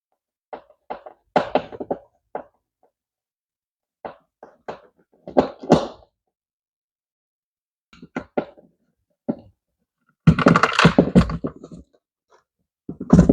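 Hands and a Phillips screwdriver working a plastic Rain Bird ESP-TM2 sprinkler controller loose from its wall mount: scattered clicks and knocks, with a longer rattling clatter about ten seconds in.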